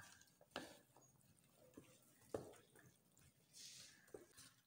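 Faint stirring of chickpea chaat in a stainless-steel tray: a few scattered light clicks of the spoon against the tray and soft squishing of the moist mixture.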